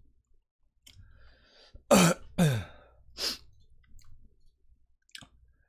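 A man coughs and clears his throat about two seconds in: a sharp cough, then a short throat-clearing sound that drops in pitch, and a brief breathy burst just after.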